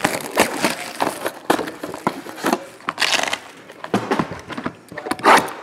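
Cellophane shrink wrap crinkling and crackling as it is torn and pulled off a sealed trading-card box, in irregular bursts with a louder rustle about three seconds in and again near the end.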